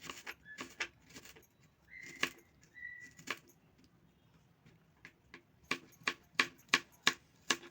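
Knife cutting a vegetable into long, thin slices: a series of sharp cutting clicks, sparse at first and then regular at about three a second near the end. A couple of short high whistle-like chirps sound about two to three seconds in.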